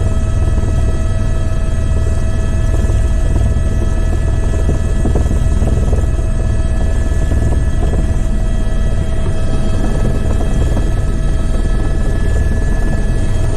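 Helicopter in flight heard from inside the cabin: loud, steady low rotor and engine noise with several steady high tones running over it.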